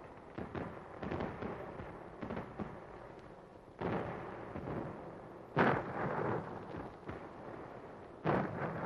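Battle gunfire and explosions: a scattered crackle of shots, then three heavier blasts, one about four seconds in, a louder one near the middle and one near the end, each trailing off.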